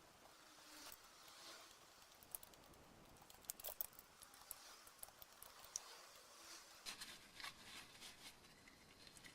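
Faint scattered clicks and light scraping, like small parts being handled, over near-silent room tone.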